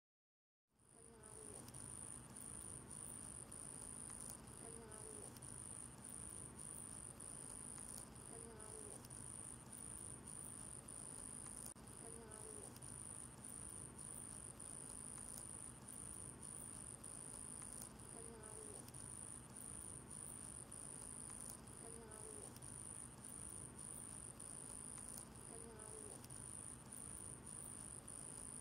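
Crickets chirping in a steady, high, pulsing trill, faint, with a soft low call repeating every three to four seconds underneath.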